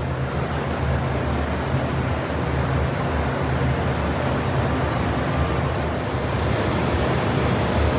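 Steady hum and hiss of the COSMO robotic sanding cell's machinery running, freshly powered up, with no sudden changes.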